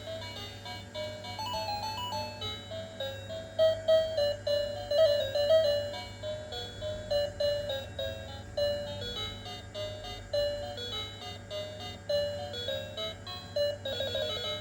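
Tinny electronic melody of short stepping beeps from a children's toy steering wheel's sound chip, over a steady low hum.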